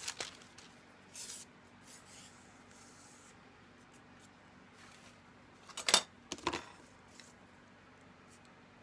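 Quiet handling of Japanese tissue paper and tools on a bench: a brief rustle about a second in, then a sharp click followed by a smaller one about six seconds in.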